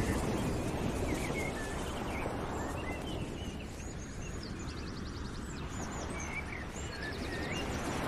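Small birds chirping, with two quick trills about halfway through and near the end, over a steady background noise like an outdoor ambience.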